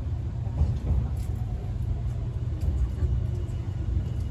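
Nankai 50000 series train heard from inside the car: a steady low rumble.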